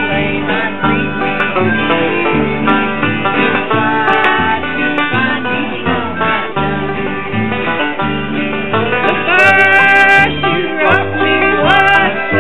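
Country-style music with plucked string instruments over a bass line that changes note about once a second.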